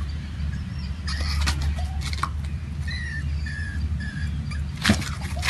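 A small animal chirping: three short, even high peeps about half a second apart, over a steady low rumble, with a few clicks and a sharper knock near the end.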